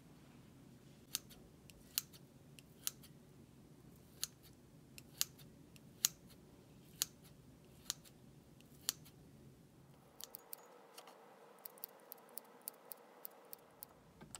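Kitchen scissors snipping through pieces of cooked meat, one sharp blade click about every second. Near the end comes a faster run of lighter clicks.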